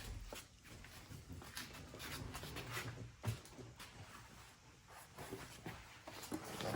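Hands working LED light-strip wiring and twist ties, making scattered rustles and light clicks at irregular intervals.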